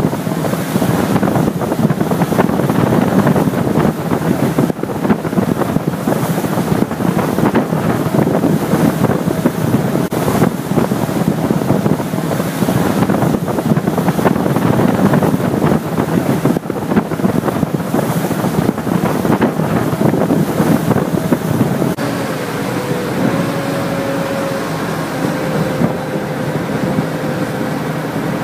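River boat under way: water rushing along the hull and wind buffeting the microphone over the engine. About 22 seconds in the rush eases and a steady engine hum comes through.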